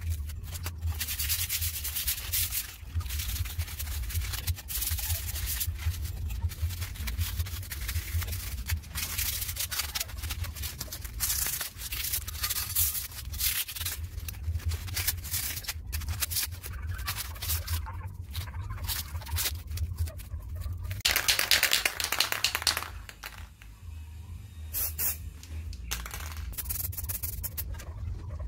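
A metal motorcycle tail tidy bracket being hand-sanded with sandpaper: irregular back-and-forth rubbing strokes, loudest about three quarters of the way through, then a short quieter lull before the strokes resume.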